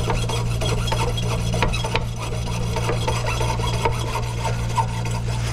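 Small hacksaw blade sawing back and forth through a water heater's magnesium anode rod in repeated rasping strokes. The rod is stuck, so it is being cut through in the middle to bend it out.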